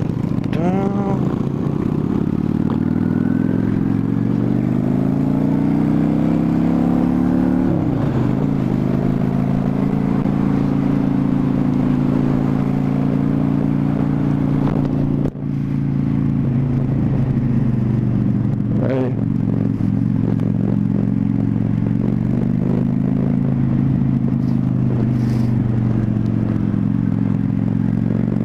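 1998 Honda VT600 Shadow's V-twin engine under way, rising in pitch for the first several seconds as the bike accelerates, then running steadily at an even cruising speed. There is a brief break in the sound about halfway through.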